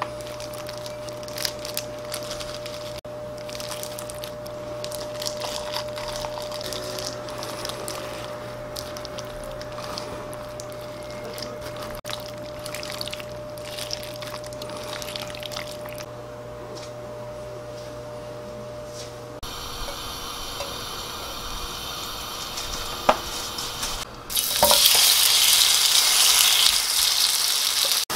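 Wooden spoon stirring wet kimchi pancake batter in a glass bowl: scattered soft scrapes and clicks over a faint steady hum. Near the end, kimchi pancake batter starts sizzling loudly as it fries in oil in a pan.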